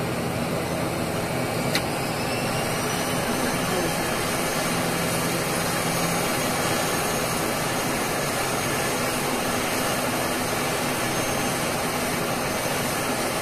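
ATR 72-600's Pratt & Whitney PW127 turboprop engines running with a steady noise. About two seconds in there is a click, and then a high whine rises in pitch over a couple of seconds and holds: an engine spooling up.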